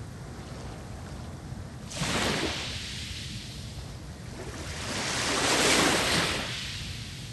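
Ocean waves breaking and washing in over a steady low rumble: one surge hits sharply about two seconds in and fades, and a second builds more slowly, peaks about six seconds in and dies away.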